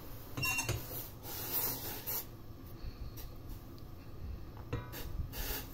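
Milk tea with ginger boiling hard in a stainless steel pot on a gas stove: a bubbling hiss over a low steady hum, swelling into louder rushes of hissing three times as the tea froths up.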